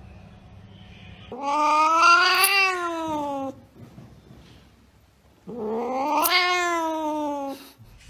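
A cat yowling: two long drawn-out calls, each about two seconds, rising a little and then falling in pitch.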